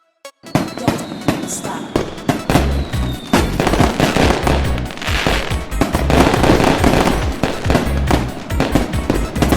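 Fireworks going off in rapid bangs and crackling, with a faint falling whistle in the first few seconds, over music with heavy low thumps.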